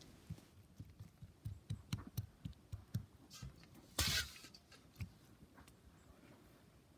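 Quiet handling of wet salmon skins on newspaper on a plywood table: a run of soft taps and small knocks, with one louder, brief rustle about four seconds in.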